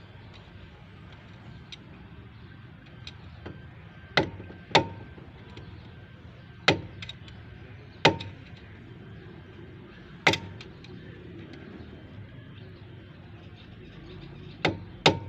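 About seven sharp knocks at irregular intervals, two of them close together near the end, each with a brief ring, over a steady low background hum.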